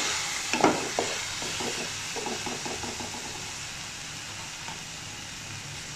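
Chilli sauce and spices sizzling in hot oil in a metal pan, with a few scrapes of a wooden spatula about half a second to a second in; the sizzle then settles and slowly fades.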